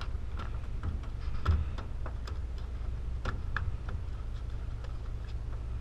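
Scattered, irregular light clicks and ticks over the steady low hum of a sportfishing boat's machinery.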